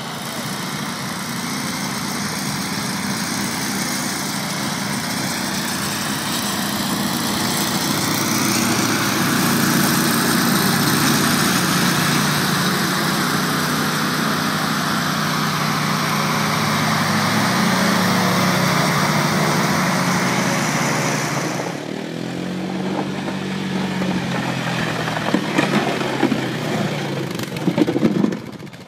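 A tracked ATV's engine running under load with its front-mounted snowblower attachment throwing snow, a steady engine hum under a wide rush of blown snow. About 22 seconds in, this cuts to a different ATV engine, with scraping clatter near the end.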